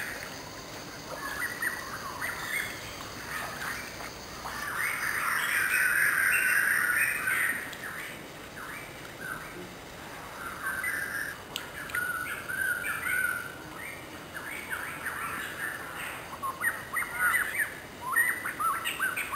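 Wild birds chirping and calling, many short overlapping calls, loudest for a couple of seconds about five seconds in.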